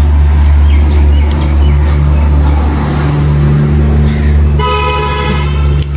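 A vehicle horn sounds once, held for just over a second near the end, over the steady low rumble of a motor vehicle running.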